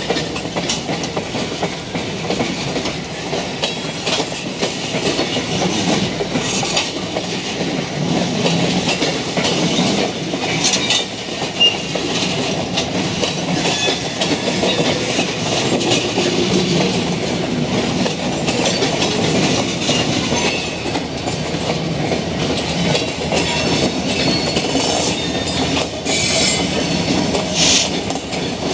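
Freight train of railroad tank cars rolling past, steel wheels clacking steadily over the rail joints, with occasional sharper clanks and a little wheel squeal.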